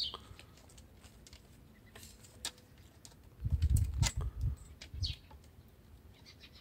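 A few short, high bird chirps, each falling quickly in pitch, near the start, about five seconds in and near the end. Scattered light clicks come in the middle, overlapped by a cluster of low thumps, the loudest part, around three and a half to four and a half seconds.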